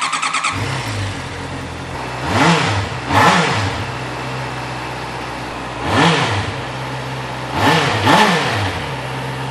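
Honda CB650R's 649cc inline-four, stock 4-into-1 exhaust, on a cold start: the starter cranks for a moment, the engine catches and settles to a steady idle. It is blipped with short, light revs, twice, then once, then twice more, each rising and falling quickly, kept gentle because the engine is cold.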